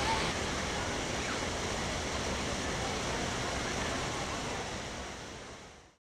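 Large man-made waterfall, with water sheeting down stone walls into a shallow pool. It makes a steady, full rushing noise that fades out near the end.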